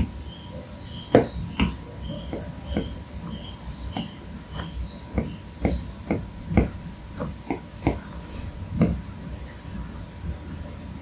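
Apple Pencil tip tapping and stroking on the glass screen of an iPad Pro: irregular sharp taps, about one or two a second.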